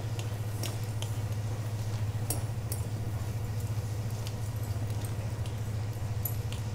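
Steady low hum throughout, with scattered faint light clicks and ticks over it.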